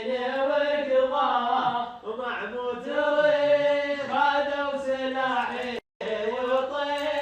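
Male voices chanting in long held notes over a steady low drone. The sound cuts out completely for a split second about six seconds in.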